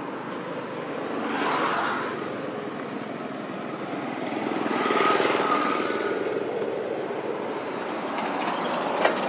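Steady outdoor background noise that swells twice, about a second and a half in and again about five seconds in, with one sharp click near the end.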